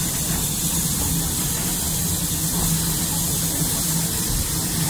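Saddle-tank steam locomotive running along the line, heard from its footplate: a steady hiss of steam over an even low running rumble.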